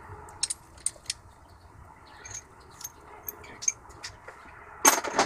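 Scattered light metallic clicks and clinks of cylinder head bolts and their washers being pulled from the head and handled, with a louder metal clatter near the end.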